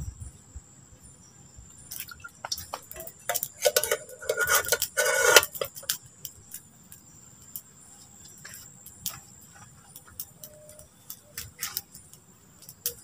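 Metal cooking pot and lid clanking and rattling as it is set down on sticks over a campfire: a cluster of knocks about two seconds in, loudest around four to five seconds. Afterwards, scattered light clicks of sticks being shifted in the fire, over a steady high drone of crickets.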